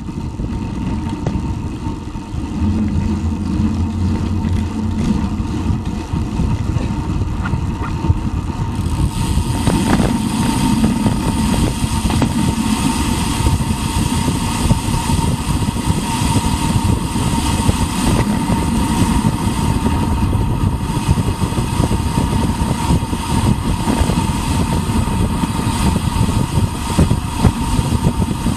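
Wind rushing and buffeting over the action camera's microphone as a bike descends a paved road, mixed with tyre noise on the asphalt. A faint steady whine runs underneath, and the rush grows brighter about nine seconds in.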